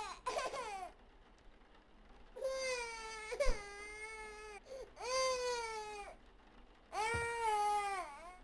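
Infant crying in a series of drawn-out wails, each about one to two seconds long, rising and then falling in pitch, with short pauses for breath between them.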